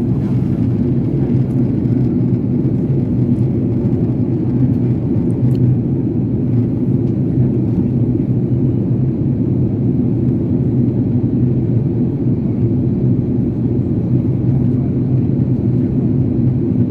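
Jet airliner cabin noise in flight: the engines and the rushing air make a steady, deep noise inside the passenger cabin.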